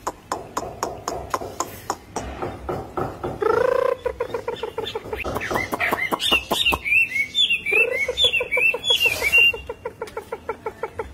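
Caged Chinese hwamei (Garrulax canorus) singing its challenge song. It gives fast runs of short, low repeated notes, with high warbling phrases about six to nine seconds in.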